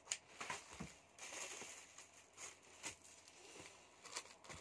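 Faint rustles and a few soft clicks against a quiet room, with one sharper click right at the start.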